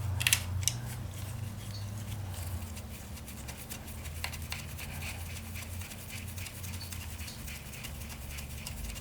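A bolt being run back into the motorcycle by hand: two sharper metal clicks at the start, then rapid faint ticking, over a steady low hum.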